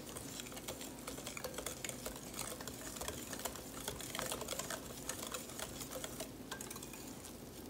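Wire whisk stirring waffle batter in a glass bowl: a quick, uneven run of light clicks and taps as the wires hit the glass, with a soft wet sound of the batter.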